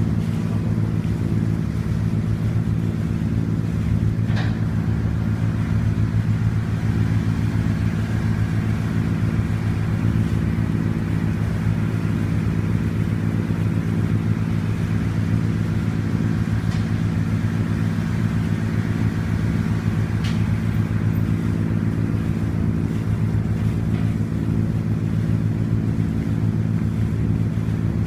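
Passenger ferry's diesel engine running steadily under way, heard on board as a constant low drone at an unchanging pitch, with a couple of faint clicks.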